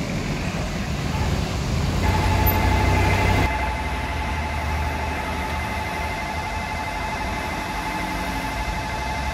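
Level-crossing warning bell ringing steadily over a rumble of road traffic; the ringing starts about two seconds in. The background drops suddenly to a quieter level about halfway through.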